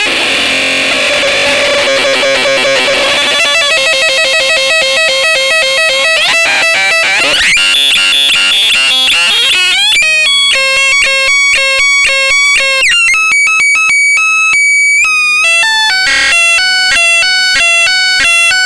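Boombox Synth 2 electronic synthesizer playing harsh, distorted tones. For about the first half it is a dense, fast-pulsing buzz. Then it turns to bleeping tones that jump from pitch to pitch several times a second, with a few quick sweeps.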